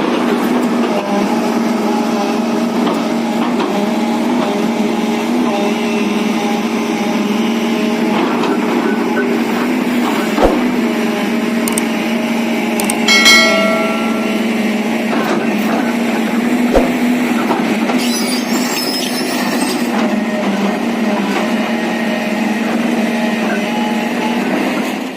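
JCB JS215 tracked excavator's diesel engine running steadily under digging work. Two sharp knocks come through, and about halfway through a short metallic clang rings out.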